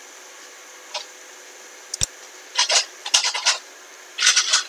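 A computer mouse clicking and being slid across the desk: a sharp click about two seconds in, and short scraping rubs in several bursts.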